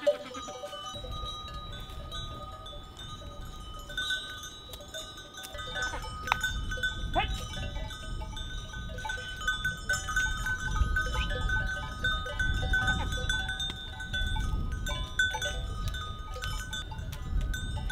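Livestock bells on a grazing flock of goats and sheep, clinking and ringing on and off, over a low rumble.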